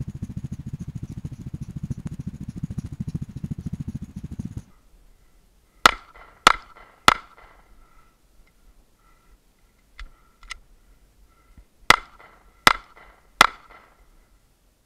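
Wind buffeting the microphone while running, which stops about four and a half seconds in. Then three handgun shots in quick succession, two sharp clicks of a reload after the pistol runs to slide lock, and three more quick shots.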